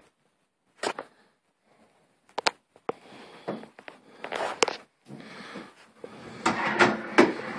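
Scattered light clicks and knocks of handling in a small room, coming thicker over the last second and a half.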